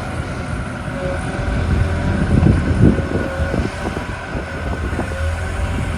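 A machine running steadily: a rumbling noise with a thin high whine over it, swelling a little in the middle.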